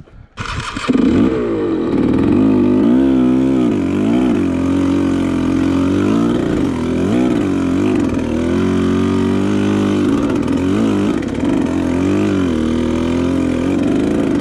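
KTM dirt bike engine running while being ridden, its pitch rising and falling again and again as the throttle opens and closes. It comes in abruptly about half a second in.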